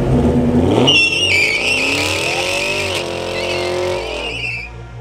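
Chevrolet Camaro doing a burnout: the engine revs up, falls back and revs again while the rear tyres squeal in a wavering high screech. The squeal starts about a second in and stops near the end.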